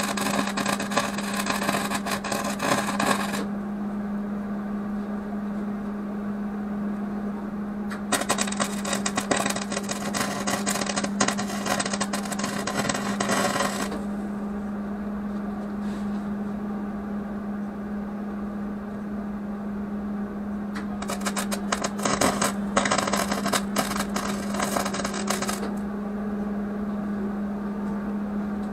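Arc welding crackling and sputtering in three runs of a few seconds each, separated by pauses of several seconds, over a steady low hum.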